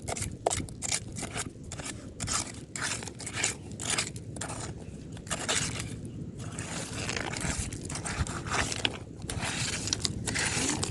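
Repeated scraping and crunching strokes of digging through sand and shell grit, in an irregular rhythm of a few strokes a second.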